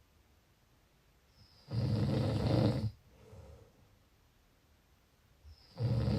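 Snoring: one loud snore lasting about a second, then a soft, quiet breath. The next loud snore starts near the end, about four seconds after the first.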